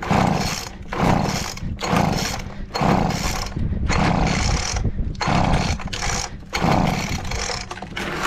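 Leaf blower blowing water off a freshly rinsed garage, its rushing air surging and easing about once a second.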